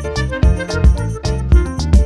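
Background music with a steady beat, strong bass hits about twice a second, and keyboard-like pitched notes.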